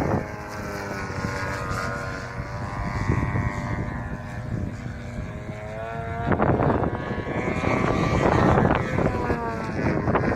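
Two-stroke twin-cylinder DA-70 petrol engine and propeller of a large aerobatic RC plane in flight. The pitch eases down over the first six seconds, then the engine gets louder about six seconds in and its pitch rises and falls as the throttle is worked.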